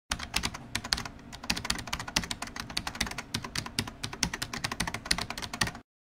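Computer keyboard typing: rapid, uneven keystrokes, several a second, that stop abruptly near the end.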